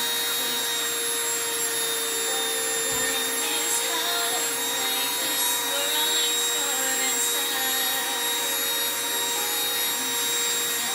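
Handheld rotary tool fitted with a diamond drill bit, its motor running at a steady high speed with an even whine while it drills a piece of sea glass.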